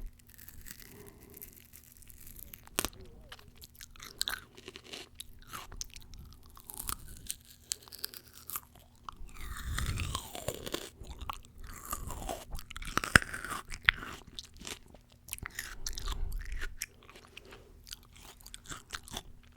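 Close-miked eating of fresh fruit: crisp bites and chewing, with irregular crunches and wet mouth sounds, loudest about ten and thirteen seconds in.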